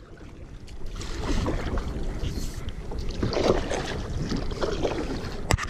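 Wind rumbling on the microphone over water lapping around a kayak, with a sharp click just before the sound cuts off.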